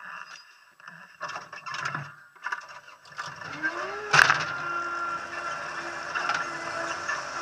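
TCM 706 skid steer loader starting up. After a few knocks and rattles there is a rising whine, then a loud clunk about four seconds in, and the engine then runs steadily.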